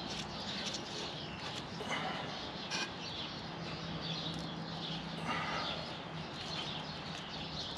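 Wild birds chirping and singing steadily in the background, with a few brief, faint scrapes or taps.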